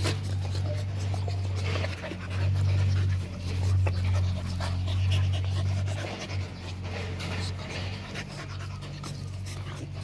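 Rottweiler puppies panting and scuffling as they play and mouth a person's hand, with a few short clicks, over a steady low hum.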